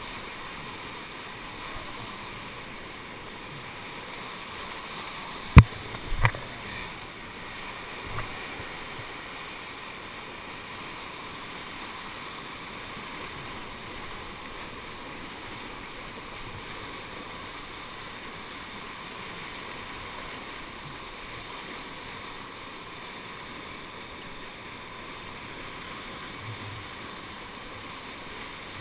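Whitewater churning around a kayak sitting in a river hole: a steady hiss of foam and current. Two sharp knocks stand out about five and six seconds in, with a lighter one shortly after.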